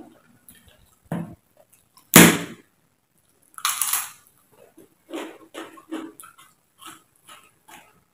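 Crisp, close-miked bites into a fried cracker, with the loudest crack about two seconds in and another bite just before four seconds, followed by a run of crunchy chewing.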